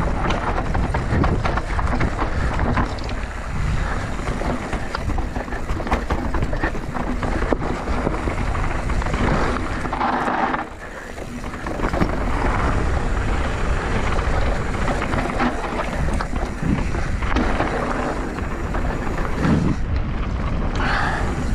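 Scott Gambler RC downhill mountain bike ridden fast down a dirt trail: tyre noise with many short knocks and rattles over the bumps, and wind buffeting the microphone.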